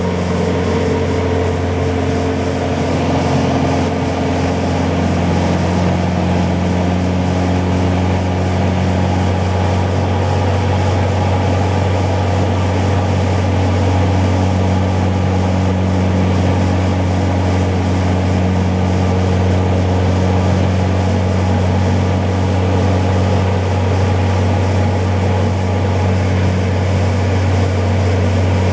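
Steady drone of a Jabiru J170 light-sport aircraft's four-cylinder engine and propeller in flight, heard inside the cabin: a constant deep hum with rushing noise over it.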